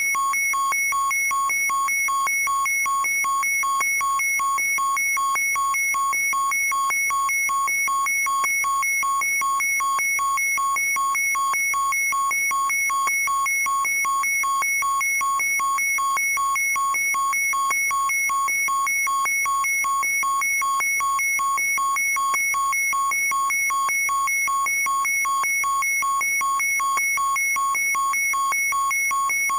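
Electronic toy's speaker playing a steady, rapidly pulsing beeping tone on a loop: the standby sound of a DX Ultraman collectible key device.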